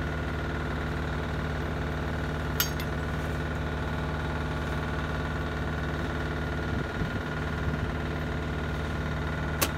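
Engine idling steadily, a low even drone, with a light metallic click about two and a half seconds in and another near the end.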